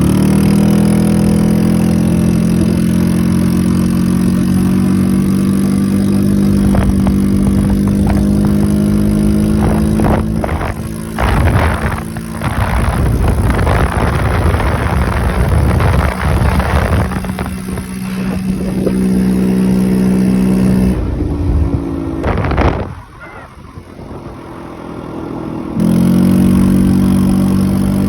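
Yamaha BWS scooter engine pulling at high, steady revs through its CVT, fitted with a performance variator whose rollers set the engine speed. Wind rushes over the microphone for several seconds in the middle, and about three-quarters of the way through the engine note drops away for a few seconds, then returns at the same steady pitch.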